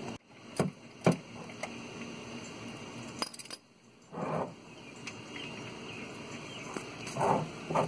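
Light metallic clinks and jingling from tools and parts being handled during an oil change: a few sharp taps about half a second apart, then a couple of duller bumps.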